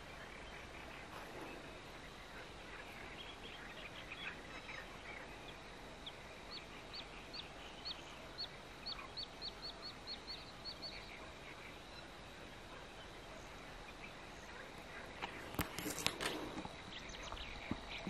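Quiet lakeside reed-bed ambience with small birds calling: a run of short high chirps that quickens between about six and eleven seconds in, over a steady thin high whine. A few sharp knocks come near the end.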